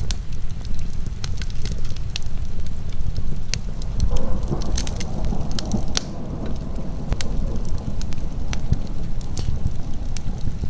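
Wood fire crackling, with irregular sharp pops and snaps over a steady low rush of heavy rain.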